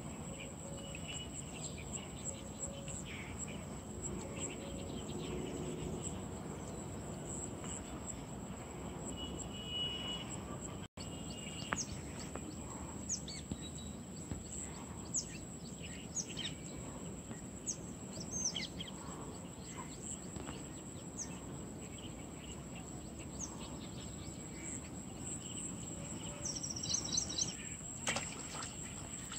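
Outdoor ambience with a steady background hiss, a steady high whine and scattered short bird chirps. A few sharp sounds come near the end.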